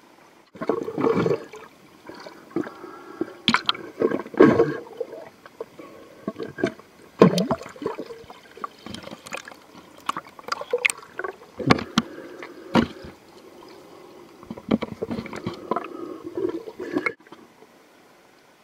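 Water splashing and gurgling around a camera moved at a pond's surface, with many irregular clicks and knocks. It starts suddenly about half a second in and cuts off about a second and a half before the end.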